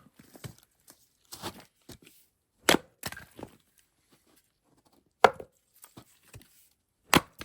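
A series of sharp chopping blows, about seven, irregularly spaced, the hardest about five seconds in.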